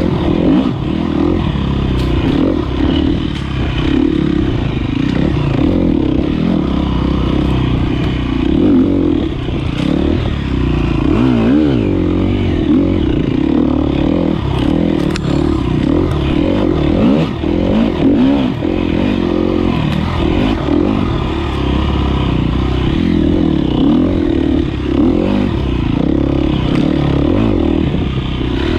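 2013 KTM 250 XC-F's single-cylinder four-stroke engine under way, revving up and down without a break as it is ridden. Scattered knocks and clatter sound over it.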